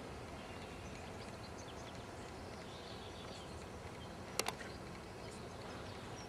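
Quiet outdoor background noise with faint, scattered bird chirps, and two sharp clicks in quick succession about four and a half seconds in.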